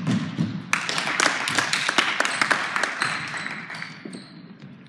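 Basketball game sounds on a gym's hardwood court: ball bounces, knocks and shoe noise echoing in the hall. A dense clatter for the first three seconds thins out and gets quieter toward the end.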